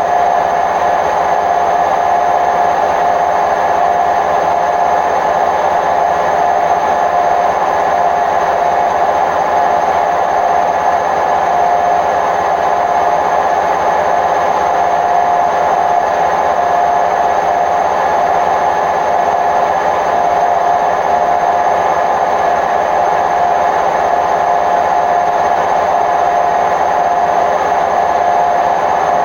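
Hotpoint WMF760 washing machine on its spin cycle at a steady speed: a loud, even noise with a steady whine running through it, the sound of worn-out drum bearings.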